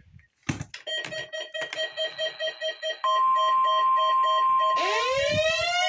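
Weather radio receiver beeping about four times a second, then the NOAA Weather Radio warning alarm tone, one steady loud tone, cuts in about three seconds in as the station's weekly test signal. Near the end a rising, siren-like wail winds up over the tone.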